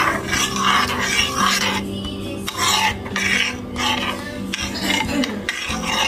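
Metal spoon stirring a thin sauce in a ceramic bowl, scraping against the bowl in repeated strokes about twice a second.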